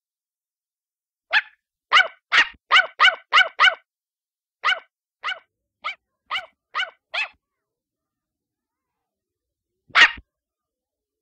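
Small puppy yapping: a quick run of about seven yaps, then a slower run of six, then a single louder yap near the end.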